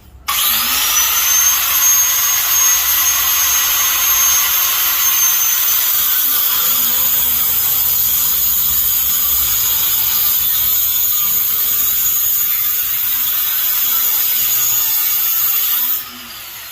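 Angle grinder spinning up with a rising whine, then cutting through a carbon-steel leg with a loud, steady, high-pitched grinding for about fifteen seconds. Near the end it is taken off the cut and winds down.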